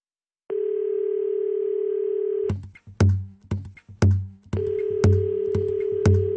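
Song intro built on a telephone dial tone: a steady tone starts about half a second in and stops about two seconds later, when a drum beat with a low kick about once a second and crisp ticks between comes in. Near the end the dial tone returns over the beat.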